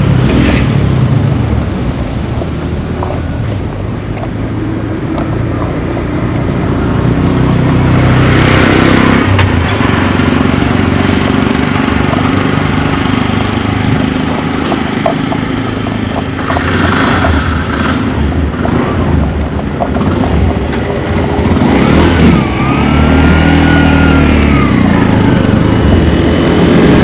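Street traffic: motor vehicles and motorbikes running by one after another, a steady engine rumble with vehicles swelling past about eight seconds in, around seventeen seconds and again around twenty-two seconds.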